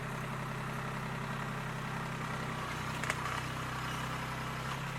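An engine idling steadily, with a single short click about three seconds in.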